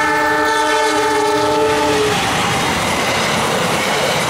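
Diesel locomotive horn sounding one long chord of several tones for about two seconds as the train approaches. It then cuts off into the steady noise of the passenger coaches' wheels and bodies passing close by.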